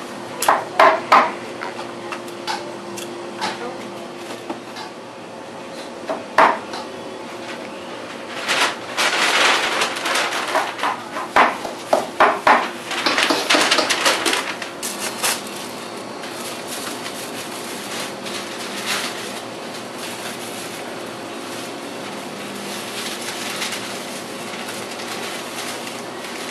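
A cardboard cake box being handled and closed with sharp taps and knocks, then a paper bag rustling in bursts as it is opened and handled. A steady faint hum runs underneath, and the later part is quieter.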